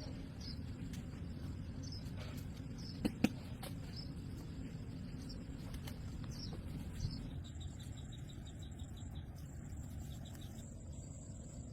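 Orchard ambience: insects chirping in short repeated calls, turning into a steady high insect drone from about halfway, over a steady low rumble. Two sharp clicks about three seconds in, and a fainter one near seven seconds.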